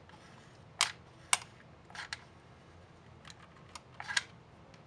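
A handful of short, sharp plastic clicks at irregular intervals from a hot glue gun being worked, its trigger squeezed to feed glue into a gap in a plastic flashlight housing.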